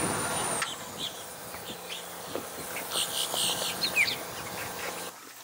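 Outdoor ambience of insects buzzing, with a short bird chirp about four seconds in.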